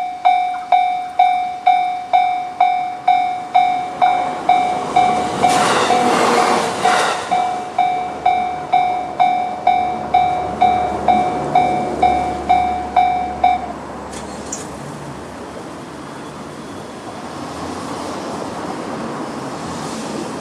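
Japanese railway level crossing's electronic warning bell (JR standard tone) ringing about twice a second. An E129-series electric train passes about 4 to 8 seconds in, with a short clatter of wheels over the crossing. The bell stops a little past the middle, leaving a steady outdoor noise.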